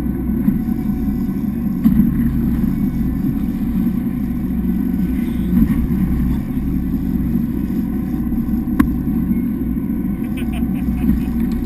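Boat engine running steadily at a constant speed, a low even drone, with one faint click about three-quarters of the way through.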